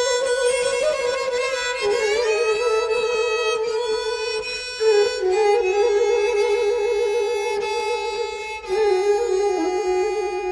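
Instrumental background music: a slow melody of long held notes with vibrato, played on a bowed or wind melody instrument.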